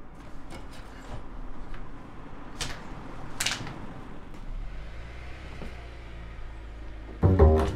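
A car engine running outside as it pulls up to the house, with a couple of short rattles of window blinds being pushed aside. Loud plucked double-bass music comes in near the end.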